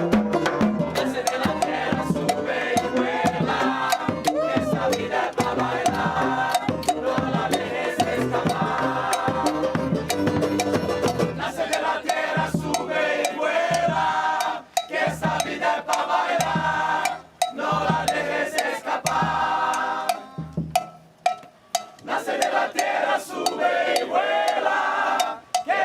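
Samba band playing: driving drums and percussion under group singing and chanting. The music breaks off briefly a few times in the second half.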